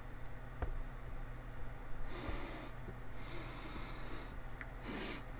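A man sniffing hard through his nose three times, the second sniff the longest, as he smells a minty analgesic gel held to his nose.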